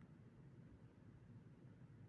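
Near silence: faint steady low room tone.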